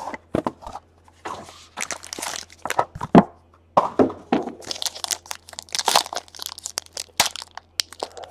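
Foil wrapper of a trading-card pack crinkling and being pulled open by hand, mixed with irregular clicks and taps from the cardboard box being handled.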